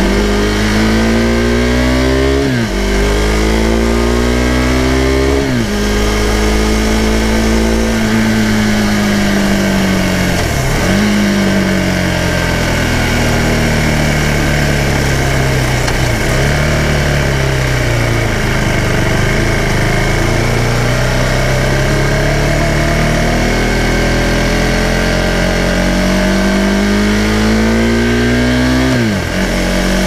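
The single-cylinder engine of a 2018 Husqvarna Svartpilen 401, recorded raw from under the seat, pulling up through the gears. Its pitch climbs under throttle and drops sharply at each gear change, about five times. In the middle stretch it eases off and falls before climbing again.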